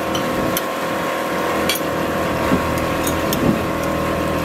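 Boat engine running steadily, a constant even drone. A few light clinks of a spoon and fork on a plate sound over it.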